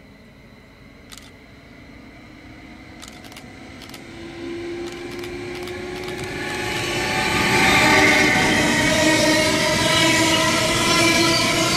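Train approaching on the line, getting steadily louder over about eight seconds. Midway, a set of steady tones comes in and holds as it draws near.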